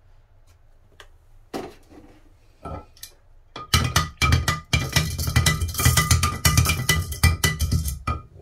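Small glass jar holding a metal gun part in cleaning liquid, rattling and clinking rapidly as it is agitated, with the glass ringing; this goes on for about four and a half seconds. A couple of single knocks on the jar come before it.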